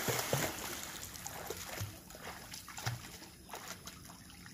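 A child's flutter kicks and arm strokes splashing across the surface of a swimming pool, loudest in the first second and fading as she swims on.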